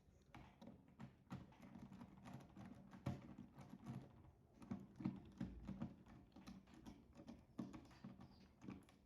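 Faint, irregular clicks and taps of a live wire being handled and readied for connection to a contactor terminal.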